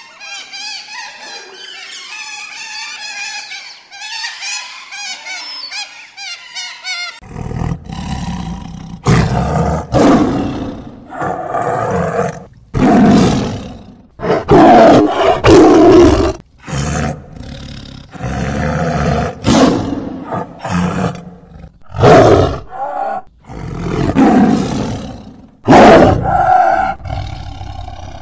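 Otters chirping and squeaking in quick, high, repeated calls; then, about seven seconds in, a tiger roaring and growling in a run of loud, deep roars, each a second or two long.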